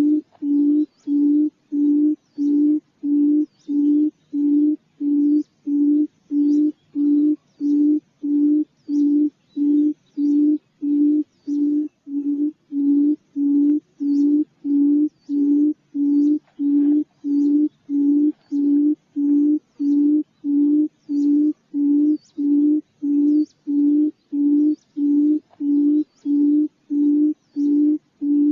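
A quail's low hooting call, one short note repeated at a perfectly even pace of about three notes every two seconds: a looped call recording used to lure quail into a trap.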